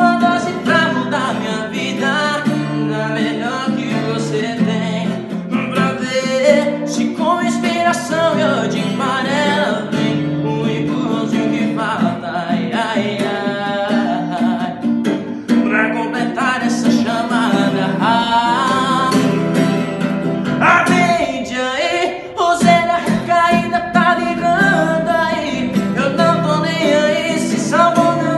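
A man singing a song in Portuguese while strumming a nylon-string classical acoustic guitar.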